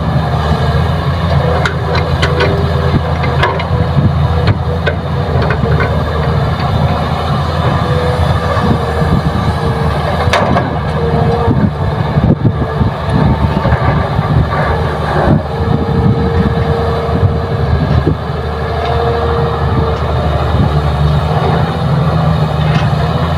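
Heavy diesel engines of a Kobelco excavator and a dump truck running steadily during soil loading, with scattered knocks and a whine that comes and goes.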